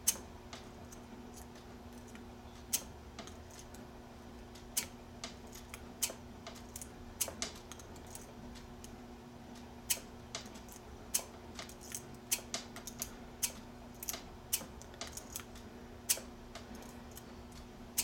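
Steel S-rake lock pick being zipped out of a small brass padlock again and again, giving sharp, irregular metal clicks as it flicks across the pin stack, over a steady low hum.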